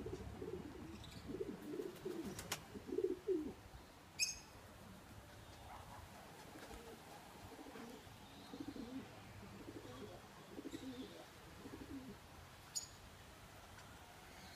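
Pigeons cooing in repeated low, warbling phrases, loudest in the first few seconds and again in the second half. A brief sharp high note cuts in about four seconds in, with a couple of fainter clicks.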